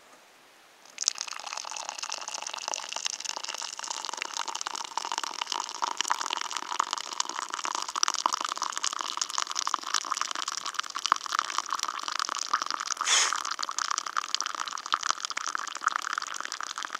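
Hot water poured in a thin stream from an Evernew titanium pot into a mug of hot-chocolate powder, starting about a second in and running steadily as the mug fills.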